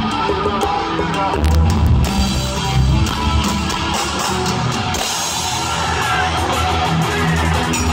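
Live rock band playing loud in an arena: distorted electric guitar, bass and drums.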